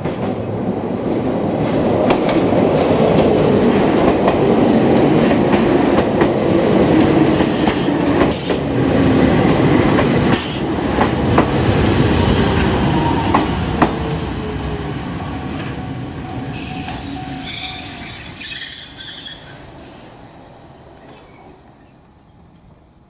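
Kobe Electric Railway train running in and braking: loud rolling noise, a motor whine falling in pitch as it slows, and a few knocks from the wheels. A wavering high squeal comes about eighteen seconds in, then the noise dies down quickly.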